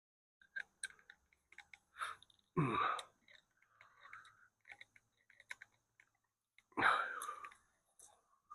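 Scattered light clicks and clinks of tools and metal hardware being handled, with two louder clunks about two and a half seconds in and near seven seconds in.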